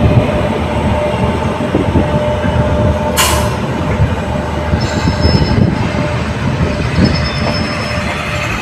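Kashi Express passenger train pulling out and rolling past: a steady heavy rumble of coach wheels on the rails with rapid knocking. There is a brief loud hiss about three seconds in, and thin high wheel squeals around five and seven seconds in.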